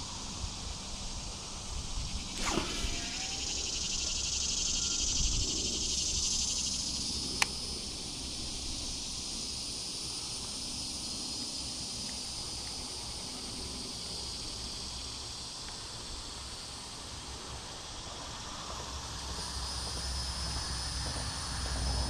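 Insects buzzing in a steady high-pitched chorus, swelling for a few seconds near the start before easing back, with one sharp click about seven seconds in.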